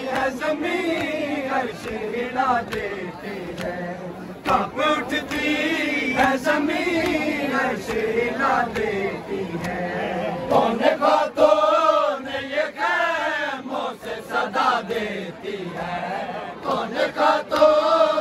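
Crowd of male Muharram mourners chanting together in a loud call-and-response lament, many voices rising and falling in unison, with short sharp strikes scattered through it.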